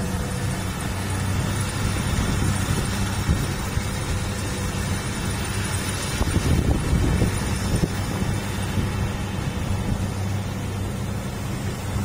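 Kubota DC-60 rice combine harvester's diesel engine running steadily as it cuts the rice, a steady low drone under a wash of machine noise. About six seconds in the rumble turns rougher and louder for a couple of seconds.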